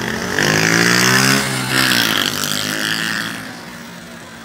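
A vehicle engine passing close by in traffic. It is loud for about three seconds, its pitch rising and then falling as it goes past, then fades.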